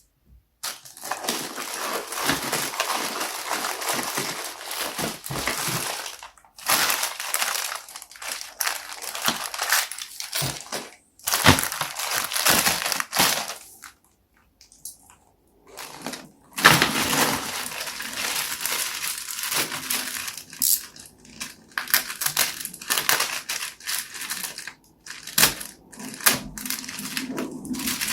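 Packaging being handled and unwrapped: crinkling and rustling in long bursts, broken by several short pauses.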